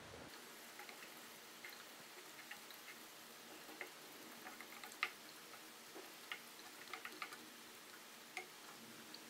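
Faint, scattered light clicks and taps as fried breaded cutlets and zucchini strips are laid by hand into a glass baking dish, with one sharper tap about five seconds in.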